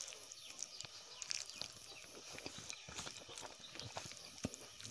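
Close-miked eating sounds: chewing and mouth smacks, a rapid irregular run of small wet clicks with one sharper click near the end, alongside fingers squishing rice on a banana leaf.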